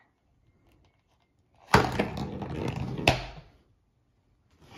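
Close handling noise. A sharp knock comes about two seconds in, then rustling, then a second knock a second and a half later.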